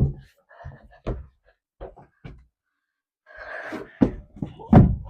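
Knocks and thumps of someone clambering into a plastic tube slide, with a brief rustle a little past three seconds in and a few more knocks near the end.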